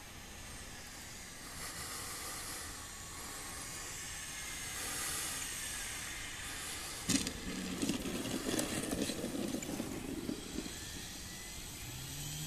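Electric RC model plane, an E-flite Carbon-Z Cub, gliding in to land with its motor and propeller whining faintly. It touches down on grass with a sudden thump about seven seconds in, then its wheels rumble as it rolls out.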